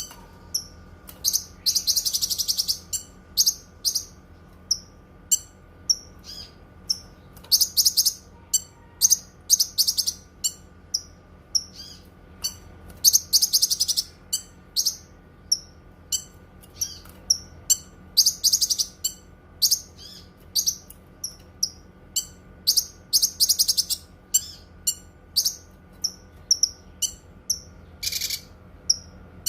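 Cucak kinoi songbird singing: a steady run of short, high chirps, broken about every five seconds by a rapid trill lasting about a second.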